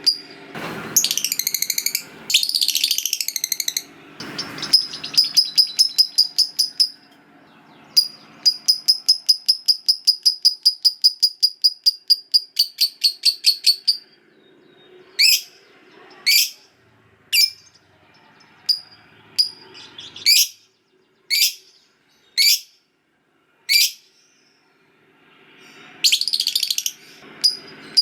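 Lovebird calling: harsh screechy calls near the start, then a long rapid chattering trill (the 'ngekek panjang') lasting about six seconds. After it come single sharp chirps about once a second, and another harsh call and trill begin near the end.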